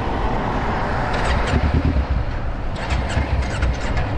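Steady freeway traffic and road noise, a heavy low rumble with no clear engine note, with short hissy crackles about a second in and again near the end.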